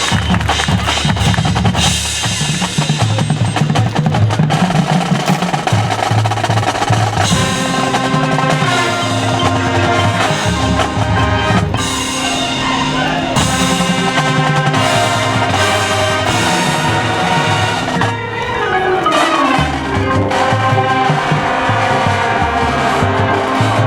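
High school marching band playing its field show: drumline snare and bass drums drive the music, and sustained brass and woodwind chords come in strongly about seven seconds in. A falling sweep in pitch runs through the band near eighteen seconds.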